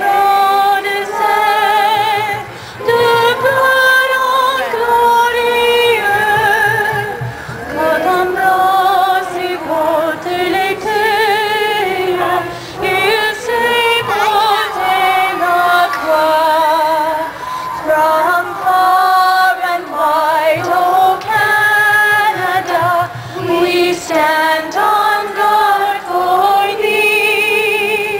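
A woman singing, with long held notes and a wide vibrato.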